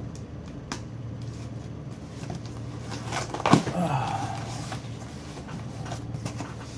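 Cardboard shipping box being handled and opened: scattered knocks, clicks and scrapes, with one louder sound about three and a half seconds in.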